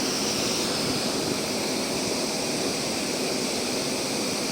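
Excavator engine running steadily as a constant mechanical noise.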